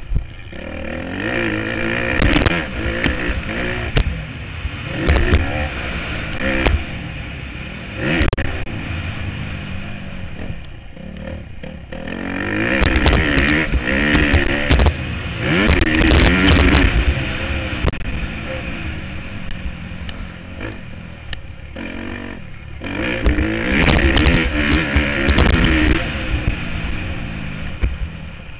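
Motocross bike's engine heard from the rider's helmet camera, revving up and down through the gears with the throttle. It opens up loudest twice, about halfway through and again near the end, with short knocks scattered through.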